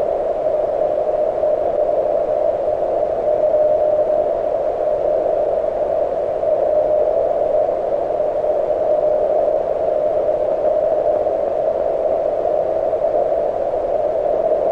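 Receiver hiss from an HF CW transceiver (the MTR-4B), heard through its narrow audio filter as a steady band of static centred on the Morse sidetone pitch, with no clear Morse signal keyed in it.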